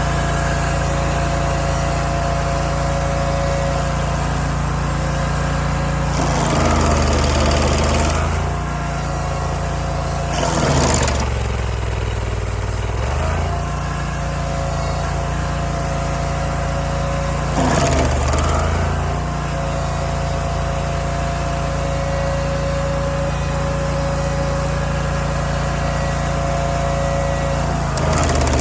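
Barreto SG3630 stump grinder's gasoline engine running steadily at speed. About four times its pitch sags briefly under load and then recovers, each time with a burst of harsh chipping noise as the cutter wheel bites into the stump.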